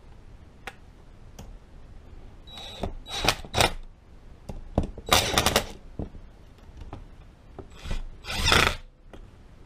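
Cordless impact driver hammering in three short bursts, tightening the nuts on the top lid of a Meyers E-57 snow plow pump.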